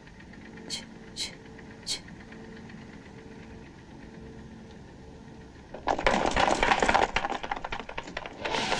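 Quiet room tone broken by three brief hisses about a second in. About six seconds in, a loud, dense clatter of knocks and scraping starts and keeps going.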